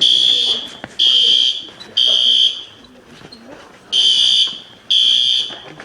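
School fire alarm horn sounding in the temporal-three evacuation pattern: harsh half-second blasts a second apart, three in a row, a pause of about a second and a half, then two more.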